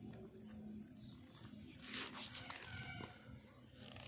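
A cat gnawing a chicken leg bone: faint crunching clicks, with a louder scraping rustle about two seconds in and a brief faint pitched call just after it, over a steady low hum.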